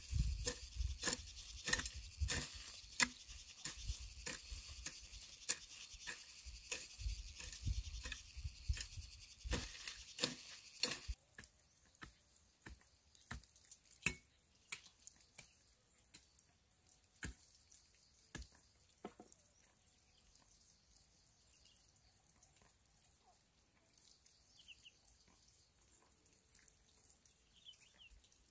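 Scattered light taps and knocks at an uneven pace, over a steady high hiss that stops suddenly about eleven seconds in; after that only sparse taps.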